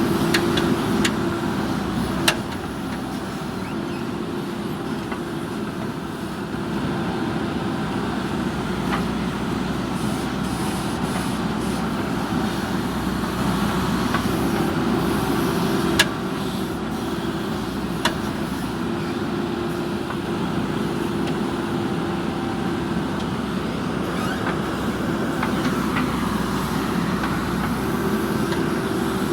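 JCB backhoe loader's diesel engine running steadily under working load, its note swelling and easing, with a few sharp knocks, the loudest about halfway through.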